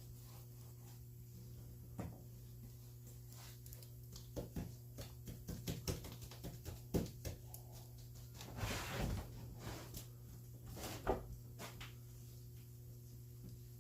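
Paintbrush working paint onto the wooden inside of a drift boat: scattered light taps and knocks, with a short scrubbing brush stroke about nine seconds in, over a steady low hum.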